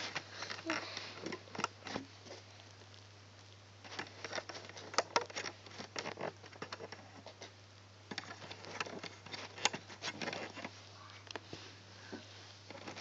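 Fingers handling rubber loom bands on a plastic loom: irregular small clicks, taps and rustles in clusters as bands are stretched and hooked onto the pegs, over a steady low hum.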